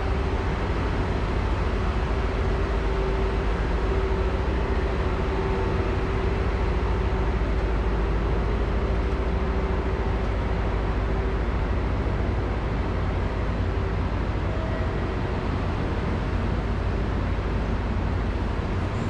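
Steady low hum and hiss of a JR Kyushu Sonic electric express train standing at a station platform with its onboard equipment running. A faint steady tone in the hum fades out about two thirds of the way through.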